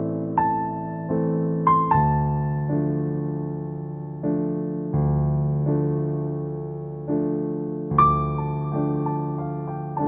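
Background music: slow electric piano chords, a new chord struck every second or so and left to fade.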